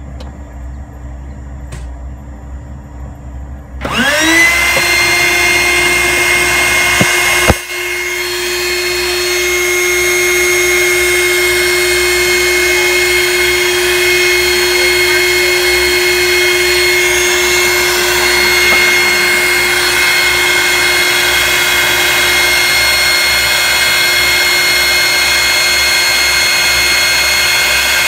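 Small electric air-mattress pump switched on about four seconds in, its motor spinning up and then running with a steady whine, used as a vacuum to draw sludgy oil from a 7.3 Powerstroke diesel's high pressure oil pump reservoir through tubing into a mason jar. A sharp click comes a few seconds after it starts.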